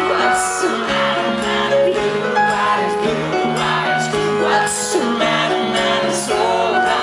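Live pop music: a male lead vocal sung into a handheld microphone over a band, heard loud through the venue's sound system from the audience.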